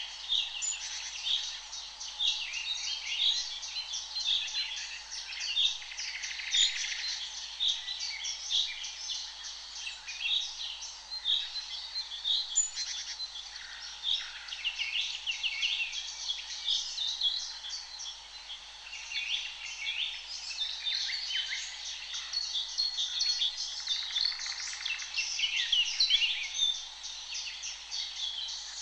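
A chorus of many songbirds singing at once, a dense, continuous mix of overlapping chirps, trills and whistles.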